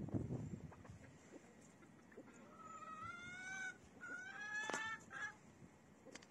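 Two drawn-out animal calls, each about a second long and slightly rising in pitch, the second following right after the first, with a few faint sharp clicks around them.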